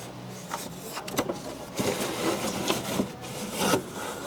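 Irregular scraping and rubbing with several sharp knocks, busiest in the second half.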